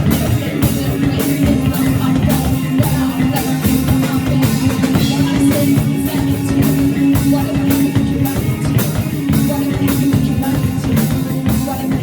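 Live band playing: a drum kit keeps a steady beat under electric guitar and bass.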